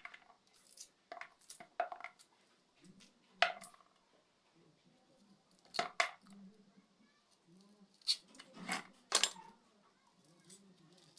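Sharp metallic clinks and knocks of cookware and utensils being handled, about nine separate strikes spread irregularly, some ringing briefly.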